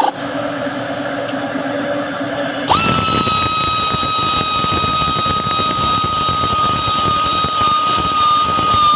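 A handheld power tool running with a steady high-pitched whine. Its motor winds down right at the start, hums lower for a few seconds, then spins up again sharply about three seconds in and runs steadily.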